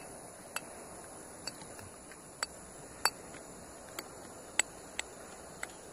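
A piece of metal being struck by hand: about eight sharp, short metallic clinks at uneven intervals, over a steady high chorus of insects.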